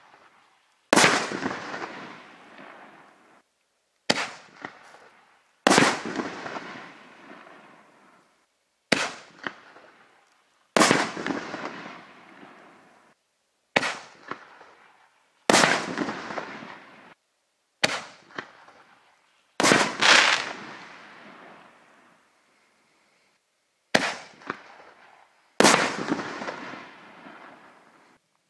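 Reloadable 60-gram consumer artillery shells fired one after another, about six in all. Each is a sharp launch thump from the tube followed about a second and a half later by a louder break that fades out over two or three seconds. There is a short pause of about two seconds before the last shell.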